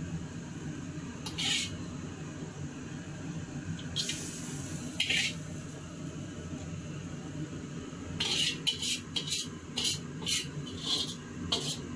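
Kitchen utensils scraping and clinking against cookware in short strokes, coming about two a second in the last few seconds, over a steady low hum.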